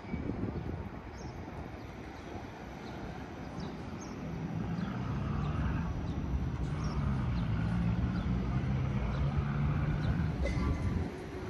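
Street noise with a motor vehicle's engine running, a low steady drone that builds from about four seconds in and cuts off abruptly near the end.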